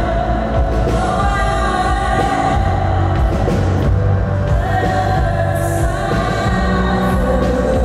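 A woman singing with a live band: long held vocal notes over a strong, steady bass.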